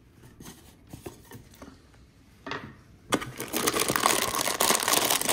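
Packaging handled in a gift box: a few light knocks and a thump, then from about three seconds in a loud, continuous crinkling and rustling of a plastic bag of gummy candy being pulled out.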